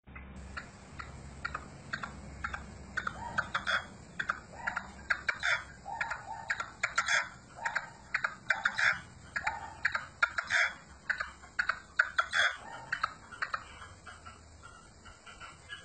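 Caged partridge calling: runs of short, clipped chucking notes, several a second, growing dense about three seconds in and going on in bouts.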